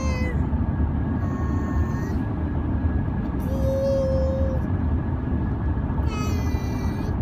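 A toddler making funny high-pitched vocal noises: short held squeals of about a second each, a few separate notes with one sliding in pitch near the end, over a steady low rumble.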